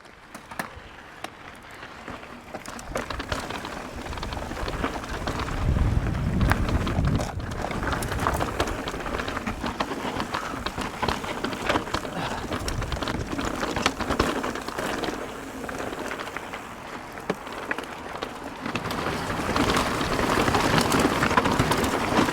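Mountain bike rolling over rough, rocky trail: tyres crunching on gravel, with a constant patter of small clicks and rattles from stones and the bike. Wind buffets the helmet camera's microphone, heaviest about six seconds in.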